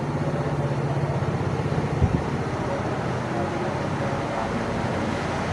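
A motor vehicle engine running steadily with a low hum, and a single short thump about two seconds in.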